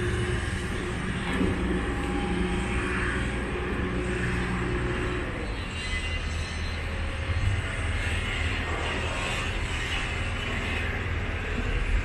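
A steady low engine drone over outdoor background noise, such as a passing aircraft or nearby heavy vehicle.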